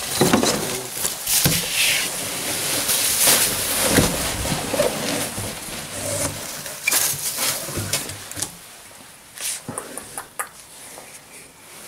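Hands rummaging through a cardboard shipping carton: crackling plastic wrapping, rustling foam packing peanuts and cardboard being handled. It is loud and continuous for about the first eight seconds, then quieter with scattered rustles and clicks.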